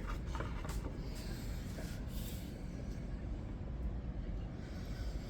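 A few faint clicks and light handling noises, as a folding knife is set up under a microscope, over a steady low hum.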